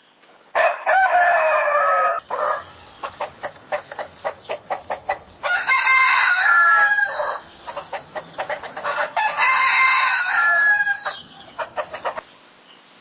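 Domestic rooster crowing three times, each crow a long call of about one and a half to two seconds that drops in pitch at its end. Between the first and second crows there is a quick run of short clucks.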